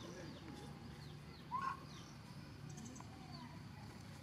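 An infant pig-tailed macaque gives a single short, squeaky coo about a second and a half in. Faint high chirps of small birds sit behind it.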